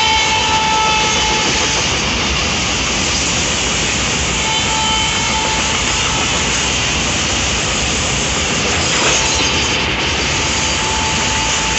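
Loaded container flat wagons of a freight train rushing past at speed: a steady loud rumble and rattle of wheels on rail. A horn note trails off in the first second or so, and a thin high tone comes and goes later.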